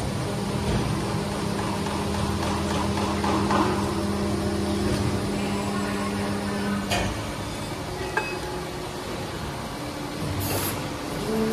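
240-ton injection molding machine running through its cycle: a steady low hum under load for about seven seconds, which drops away with a click. A few more clicks follow, then a brief hiss near the end.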